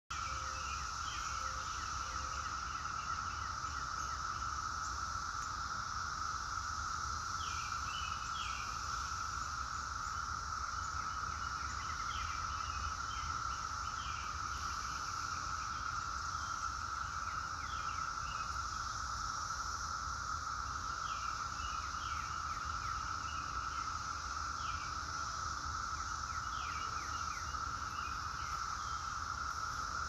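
A chorus of periodical cicadas singing: a steady, unbroken drone held at one pitch, with no rise or fall in level.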